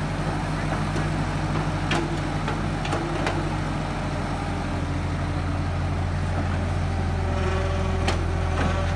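Diesel engine of a CAT hydraulic excavator running steadily while its boom and bucket work to free the machine from the mud, with a few brief knocks.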